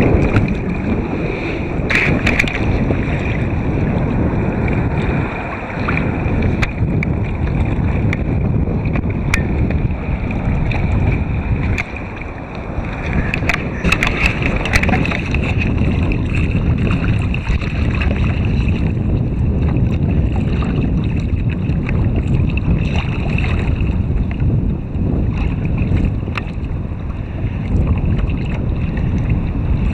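Wind buffeting the microphone over water sloshing against a kayak hull, with a few short knocks and splashes.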